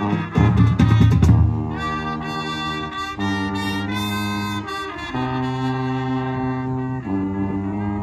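High school marching band playing: for the first second and a half, drums and brass in a quick rhythm, then the brass holds a series of long sustained chords, each lasting a second or two before moving to the next.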